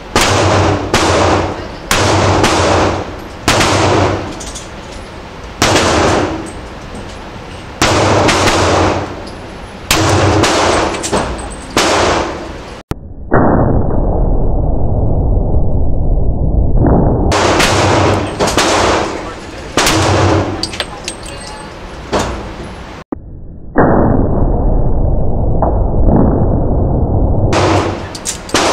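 Smith & Wesson M&P40 pistol firing .40 S&W Sellier & Bellot rounds in an indoor range booth, shots roughly a second apart, each with a ringing echo. Twice, about halfway through and near the end, the sound turns dull and muffled for a few seconds.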